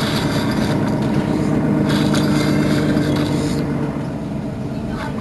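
Mercedes-Benz Citaro facelift city bus engine idling steadily, with a hiss that comes and goes above the engine hum.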